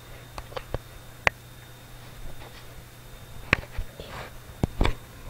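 A scattering of sharp clicks and knocks, the loudest about a second in and a close pair near the end, over a low steady hum.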